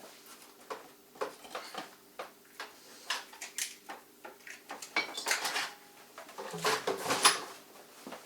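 Irregular metallic clinks, clicks and rattles of hard objects being handled, busier and louder in the second half.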